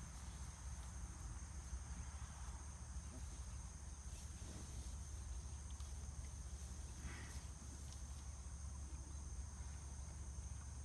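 Steady chorus of insects such as crickets, a continuous high-pitched drone, over a low rumble.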